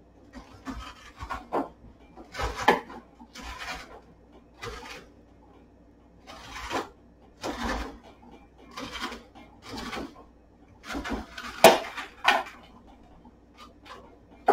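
A metal spoon scraping the seeds and stringy pulp out of a halved spaghetti squash, in a series of short scrapes about once a second.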